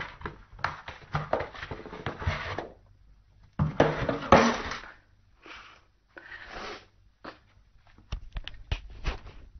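Cardboard box rustling and scraping as a cat pushes and wriggles into it, in uneven bursts of scuffing, with a few sharp knocks near the end.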